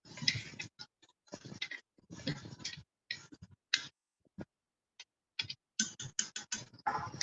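A spoon scraping and knocking in a cooking pot while a spice mixture is stirred and fried: irregular short scrapes and ticks with brief pauses between them.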